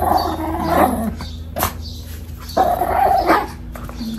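Pet dogs barking and yipping as they play, in two bouts: one at the start lasting about a second, another a little past the middle.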